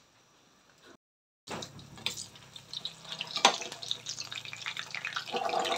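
Sliced saba bananas frying in hot oil in a pan: a crackling sizzle that starts after a brief silence about a second and a half in and carries on, with one sharp click partway through.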